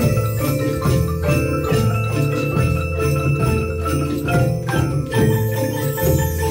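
Children's Orff ensemble of xylophones, metallophones and glockenspiels played with mallets: repeating low bass-bar notes under ringing higher notes, in a steady beat.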